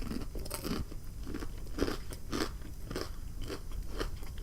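Close-miked chewing of crunchy breaded fried food, a steady run of crunches about two a second.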